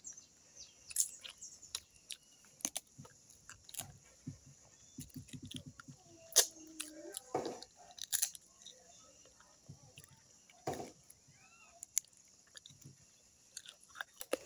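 Cooked crab being eaten: shells cracked and bitten open, with chewing between scattered sharp cracks and crunches.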